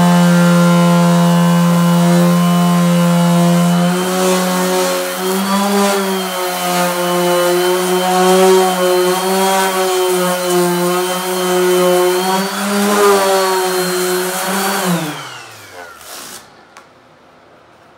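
Dual-action orbital sander running on an aluminum snowmobile tunnel panel: a steady whine that begins to waver in pitch about four seconds in, then winds down and stops near the end.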